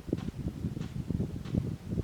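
Irregular low rustling and buffeting, like wind on the microphone and leaves or branches being stirred, with no clear bird calls.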